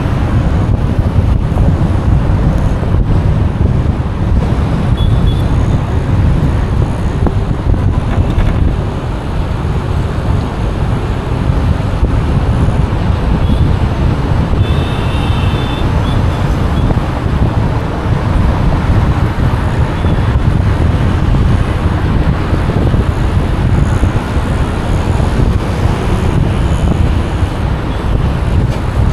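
Road and traffic noise from a moving car on a busy road: a steady deep rumble of tyres and engines from the car and the vehicles around it. A brief high-pitched tone sounds about halfway through.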